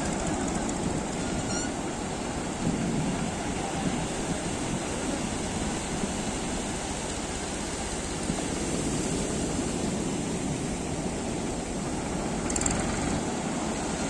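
Ocean surf breaking and washing up a flat sandy beach: a steady rushing that swells a little about three seconds in and again later.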